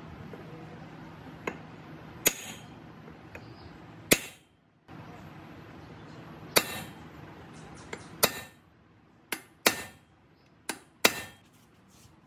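Hammer tapping on the steel parts of a restored pipe wrench during reassembly: about ten sharp metallic taps with a brief ring, irregularly spaced and several in quick pairs.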